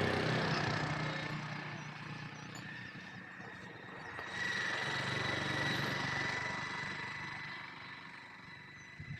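A motor vehicle engine running, growing loud twice and fading each time, as if vehicles are passing.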